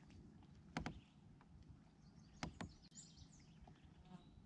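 Near silence on the water: a faint low hiss of open-air background, broken by a few short, faint clicks, two close together about a second in and two more about halfway through.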